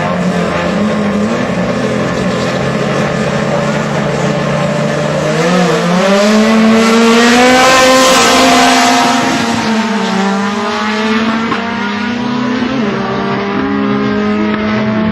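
Drag-racing car engines running hard, their pitch rising about five seconds in and growing loudest around eight seconds before easing back to a steady drone.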